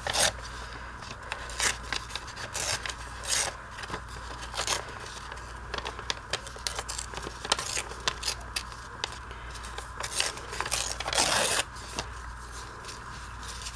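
Old book-page paper rustling and being torn by hand into strips: a run of short, crisp rustles and rips, with a longer tear about eleven seconds in.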